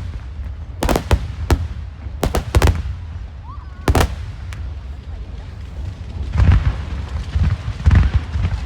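Aerial firework shells bursting in a starmine barrage: a few sharp bangs through the first four seconds, then from about six seconds in a denser run of deep booms with crackling.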